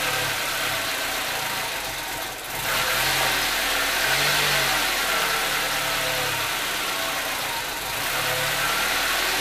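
Nissan car engine idling steadily while it warms up.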